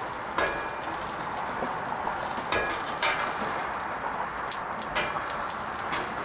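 Asparagus sizzling in oil on a hot Blackstone flat-top griddle, a steady hiss. A few short taps and scrapes of a metal spatula on the griddle steel cut in.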